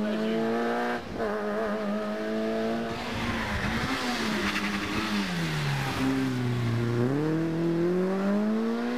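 Rally car engine at high revs holding steady, then dropping sharply about five seconds in, staying low for a second and climbing again as the car accelerates. A hiss of tyre noise comes through in the middle.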